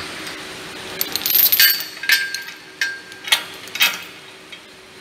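Heavy steel pulling chain for a frame-aligner bench being handled, a run of sharp metallic clinks and rattles of the links starting about a second in, some with a short ringing tone.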